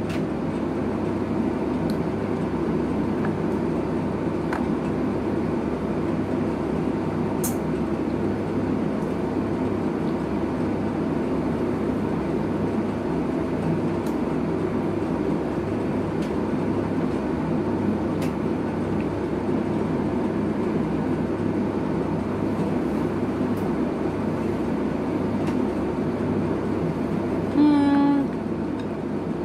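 A steady, low mechanical rumble from a running machine, unchanging throughout. There are a few faint clicks, and a short voiced sound near the end.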